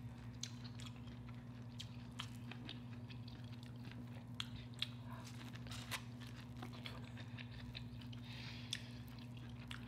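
Faint close-up chewing and eating sounds from boiled corn on the cob: small wet clicks and crunches scattered irregularly, over a steady low hum.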